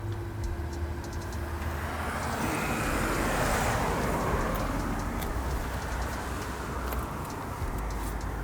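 V8 engine idling steadily through Black Widow Neighborhater mufflers, a low rumble. A rushing noise swells about three seconds in and fades over the next couple of seconds.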